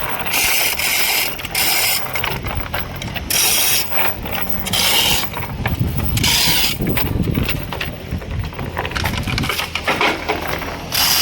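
Hand-worked metal ratchet mechanism cranked in repeated strokes, each a rasping stretch of about half a second to a second, over a steady low rumble.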